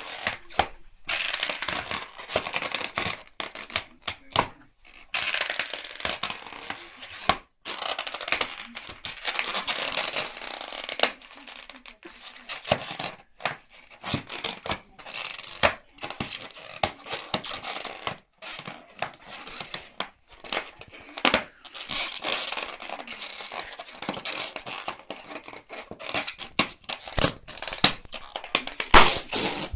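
Border collie chewing and biting a twisted latex modelling balloon: the taut rubber squeaks and creaks under its teeth, with sharp clicks and crinkly scraping in irregular spells. A few louder sharp cracks come near the end.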